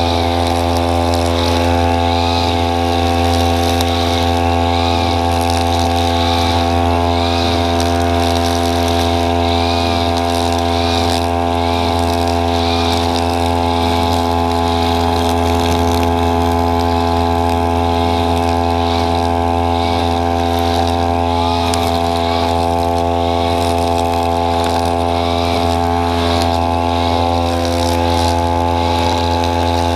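Brush cutter's small engine running at a steady, unchanging speed while trimming grass.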